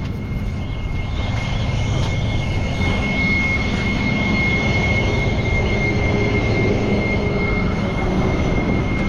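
Rollback tow truck running, a steady engine drone with a constant high-pitched whine held over it.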